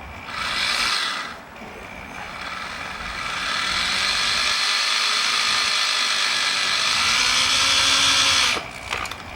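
Electric drill boring into the pinched end of a copper tube, set with a depth stop so the hole does not go through. It runs briefly once, then drills in one steady run of about seven seconds that stops suddenly near the end.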